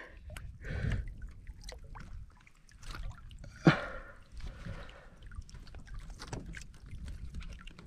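Water sloshing and dripping against the side of a small boat as a caught fish is held at the surface, with scattered small splashes and knocks. A sharper, louder sound stands out about three and a half seconds in.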